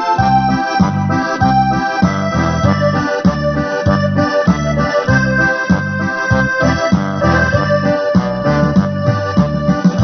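Background music: an instrumental passage with electric keyboard or organ over a steady bass beat, between the verses of a song.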